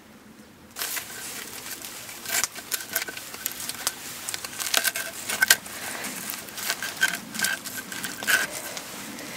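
A knife cutting through a crisp pizza crust on a wooden block: repeated crunching and crackling with sharp clicks, starting about a second in.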